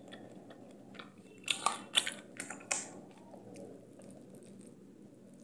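Eating sounds: a metal spoon clicking and scraping in a bowl about five times, between a second and a half and three seconds in, with quiet chewing.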